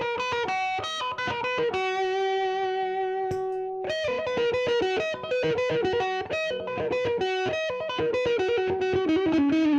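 Electric guitar through effect pedals and an amp playing single-note lead lines. One note rings for about two seconds early on, followed by quicker runs of notes.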